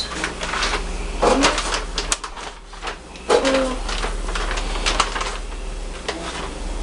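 Hot oil in a fryer sizzling steadily as chicken tenders cook, with scattered crackles and clicks. Twice there is a brief voice sound.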